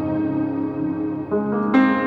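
Uplifting trance music in a slow intro: sustained pitched chords with no beat, a new chord coming in about one and a half seconds in.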